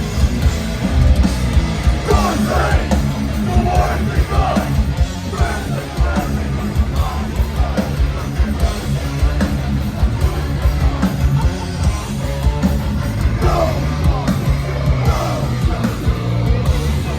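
Live hardcore metal band playing loud, with heavy drums and distorted guitars and bass, and a vocalist shouting over it, recorded from the crowd.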